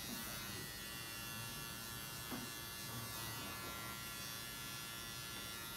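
Electric hair clippers running with a steady buzz.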